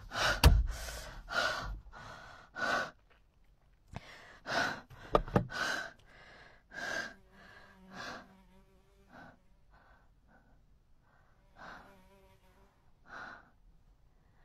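A person breathing hard in gasps, loud and quick at first, then easing to fainter breaths about a second or more apart. From about seven seconds in, a faint steady buzz runs underneath.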